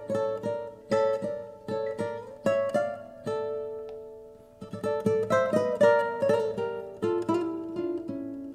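Soundtrack music: a plucked string instrument, guitar-like, picking a slow melody of single notes that ring and fade. One note rings out alone for about a second in the middle before the picking resumes.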